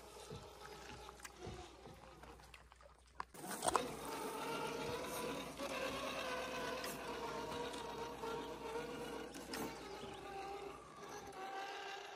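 RC scale crawler's electric motor and gears whining as it crawls over rock, the pitch wavering with throttle and load, with small clicks and knocks from the tyres and chassis on stone. The whine gets louder after a sharp click about three seconds in.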